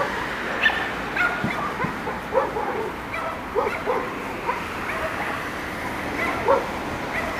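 Dogs barking in short, separate barks about every second or so, over a steady background hiss.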